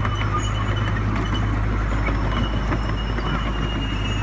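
Ride-on miniature train running along its track, the wheels clattering over the small rails above a steady low rumble.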